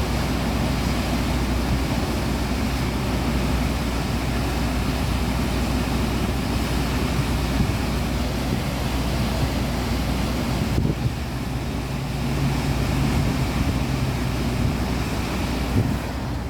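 River in flood rushing steadily, with wind buffeting the microphone.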